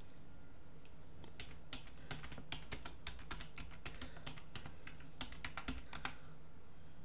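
Typing on a computer keyboard: a run of irregular key clicks that starts about a second in and stops about six seconds in, over a steady low hum.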